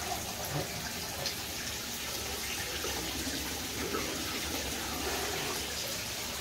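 Tap water running steadily into a bathtub full of bubble-bath foam, an even hiss.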